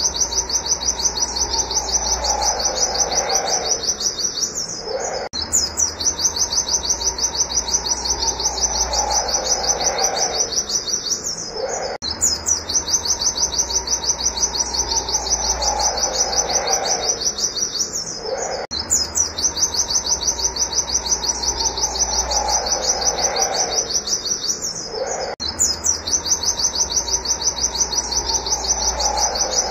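Pet white-eye (pleci) singing its 'wit wit' song: a fast, unbroken run of sharp, high, chirping notes. A lower falling call comes in roughly every six and a half seconds.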